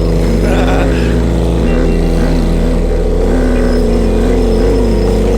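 Four-wheeler ATV engines running, their pitch rising and falling, with a deep stepping bass line of music underneath.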